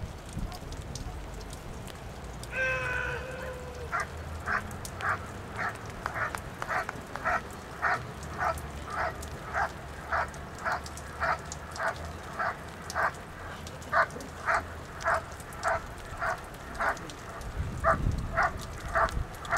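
German shepherd dog barking at the protection helper while guarding him after the out, in an even, steady series of just under two barks a second. A single held call comes shortly before the barking starts.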